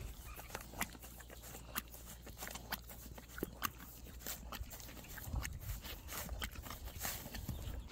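A Tennessee Walking Horse licking and muzzling a paint-loaded gallon Ziploc bag: irregular crinkles and clicks of the plastic under her mouth.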